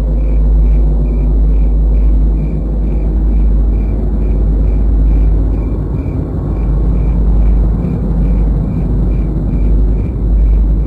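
Deep, steady rumble with a faint high tick repeating evenly a little more than twice a second.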